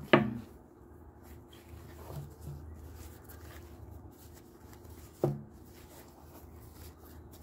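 Handling of a tanto sword in a cloth sword bag over a cardboard box: two sharp knocks, one at the start and one about five seconds in, with faint rustling and bumps between.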